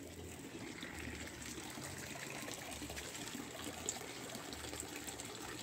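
Water steadily trickling and splashing into a small pond.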